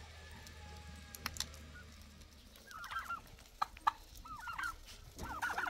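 Domestic turkeys gobbling in three short, rapid, rattling bursts from about halfway in.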